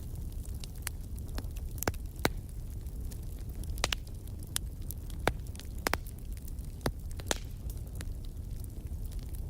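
Wood fire burning in a fireplace: a steady low rumble of flames with irregular sharp crackles and pops from the burning logs, one of the loudest pops a little over two seconds in.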